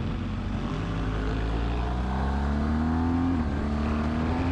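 Motorcycle engine pulling harder with rising pitch, which drops suddenly about three and a half seconds in at an upshift and then climbs again. A steady rush of wind and road noise runs underneath.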